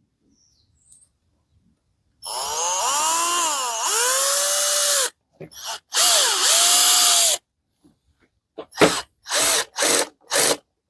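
Parkside PBSA 12 D4 12V cordless drill/screwdriver motor whining in two runs, its pitch rising as it speeds up and dipping under load as it drives a small screw, on its lowest clutch setting. Near the end come four short trigger bursts.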